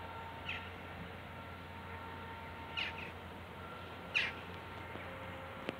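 Three short downward bird calls, the last the loudest, over a faint steady hum, with a sharp click near the end.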